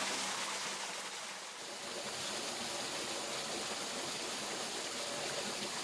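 Waterfall water falling and rushing in a steady, even hiss.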